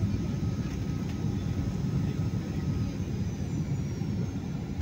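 Airliner landing rollout heard from inside the cabin: a steady low rumble of the aircraft rolling down the runway after touchdown.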